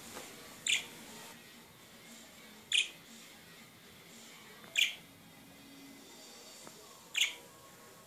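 Budgerigar giving four short, high chirps, each about two seconds apart.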